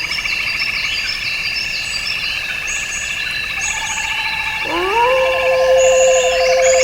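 Night chorus of frogs and insects: a steady pulsing trill with short high chirps repeating over it. About two-thirds of the way in, a lower call swoops up in pitch and then holds steady.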